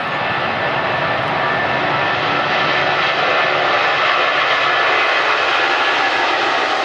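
Four-engine Boeing 747 jet airliner rolling along the runway, its jet engines running loud and steady.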